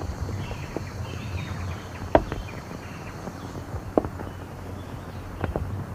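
A few scattered sharp knocks, the clearest about two seconds in and about four seconds in, with a pair near the end, over the steady hum and hiss of an old film soundtrack.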